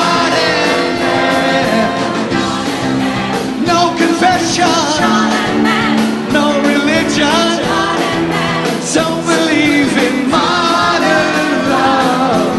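Live rock band playing, with a lead singer singing into a handheld microphone over electric guitar and the band.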